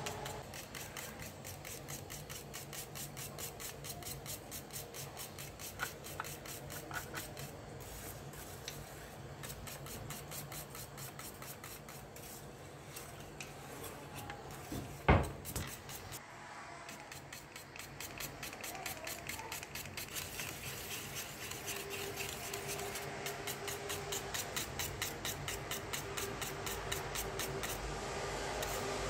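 Wire whisk scraping around a stainless steel pot of milk pudding at a steady rhythm of about three strokes a second, with one sharp knock about halfway through.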